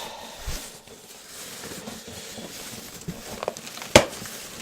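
Cardboard box and packaging rustling and knocking as a fridge is handled out of its carton, with a single sharp knock about four seconds in.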